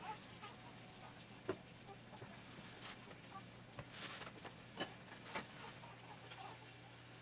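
A hand wiping a wet spill off a countertop: faint, scattered swipes and small squeaks, with a few louder strokes around the middle, over a steady low hum.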